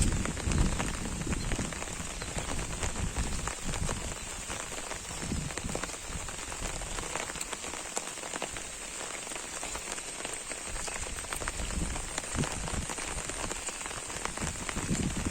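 Steady rain falling on an umbrella, many separate drops ticking over a continuous hiss.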